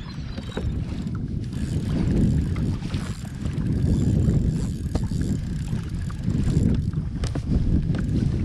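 Wind buffeting the action-camera microphone, an uneven low rumble that swells and eases in gusts, over open water around a kayak, with a few faint knocks.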